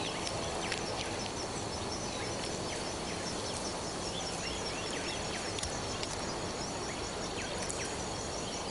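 Outdoor nature ambience: a steady, evenly pulsing high insect trill with scattered short, high bird chirps over a background hiss.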